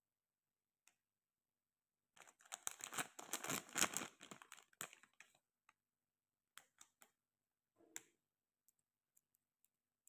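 Handling noise from hands working a charging cable and its small metal magnetic tips: about three seconds of dense crinkly rustling and clicking, then a handful of separate small clicks.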